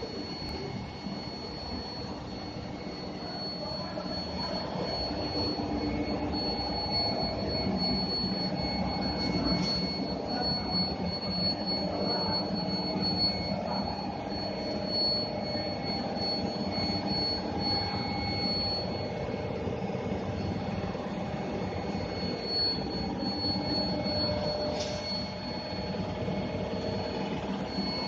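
Continuous running noise of an aluminium bar induction heating and rolling line: a low machine rumble with mid-pitched hum that shifts slightly, under a steady high-pitched whine.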